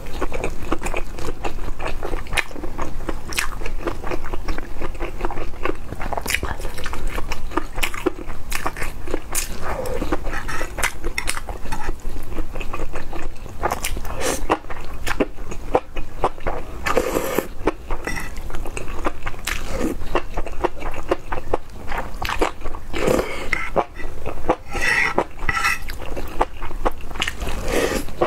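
Mouth sounds of eating sauce-coated enoki mushrooms: wet chewing and slurping of the strands, with many small clicks and smacks and a few longer slurps in the second half.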